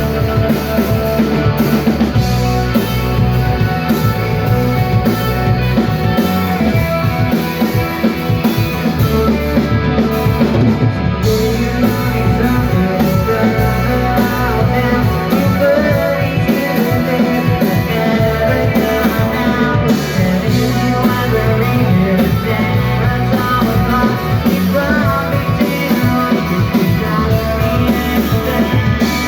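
Rock band playing live, with electric guitar and drum kit, loud and continuous.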